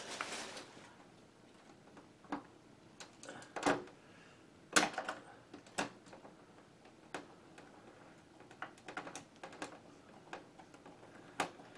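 Scattered light clicks, taps and scrapes of hands fastening a plastic speaker to the side of a CRT monitor, with a sharper knock about five seconds in.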